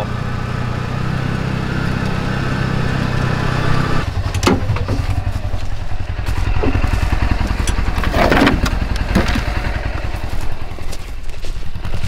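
Utility side-by-side (UTV) engine running steadily. About four seconds in the steady hum gives way to an uneven pulsing idle, with a few knocks and clatters.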